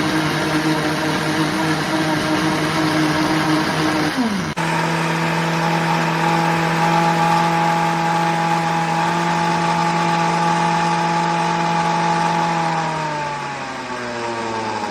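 PRASKY countertop blender's motor running at a steady speed, with a brief drop and break about four seconds in before it runs steadily again. Near the end it winds down, its pitch falling as the blades slow.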